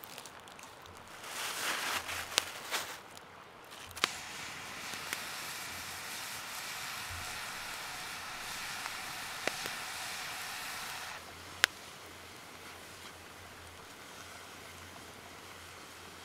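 Chanterelle mushrooms sizzling in a small skillet over a wood campfire, a steady hiss with a few sharp pops from the fire. The sizzle cuts off suddenly about eleven seconds in.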